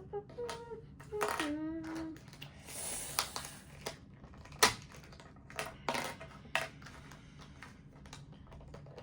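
Plastic clicks and snaps of 2x2 Rubik's cube pieces being handled and pressed together, irregular, with one sharp click about halfway through the loudest. Brief hummed vocal sounds come in the first two seconds.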